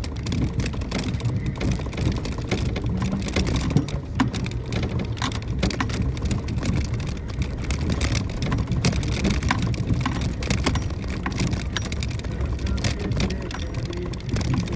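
Suzuki Jimny JB64's small turbocharged three-cylinder engine running steadily while the vehicle drives down an unpaved forest road, with constant ticking and clatter of gravel and stones under the tyres and against the body.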